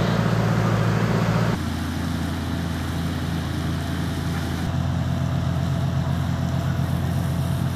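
Fire-brigade pump engines run at a steady drone, with a hiss of water through the hoses, while flood water is pumped out. About a second and a half in, the drone becomes slightly quieter and lower, and then holds steady.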